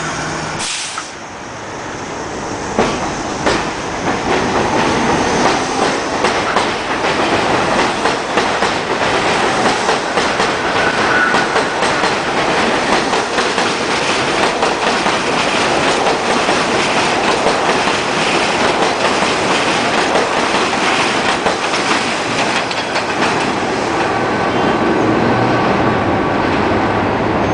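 R62A subway train pulling out of the station and running past at speed, its wheels clattering over the rail joints. The sound builds over the first few seconds and then holds steady.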